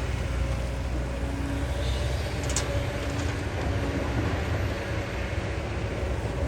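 Kobelco excavator's diesel engine running steadily under working load: a continuous low rumble with a faint steady whine. A single short click comes about two and a half seconds in.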